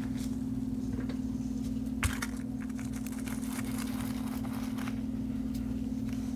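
Soft crackling and rustling of potting mix being handled and pressed into a plastic cup, with a sharp click about two seconds in, over a steady low hum.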